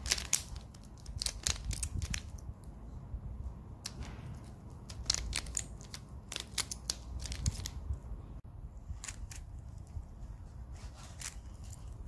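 A plastic mirror cube (a 3x3 shape-shifting puzzle) being turned by hand: irregular clicks and clacks of its layers snapping round, in quick clusters, over a low rumble.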